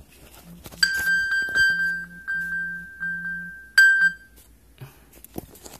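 An iPhone playing its locate alert: a quick series of high, bell-like pings, repeating about three or four times a second. One last loud ping comes near the four-second mark, and then the sound cuts off.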